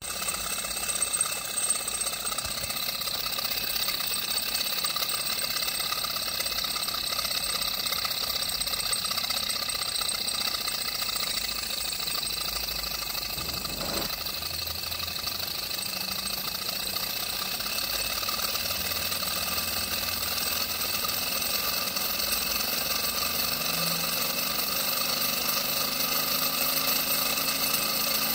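Small brass model Stirling engine running on a tea-light candle, its pistons and flywheel making a steady, rapid mechanical rattle.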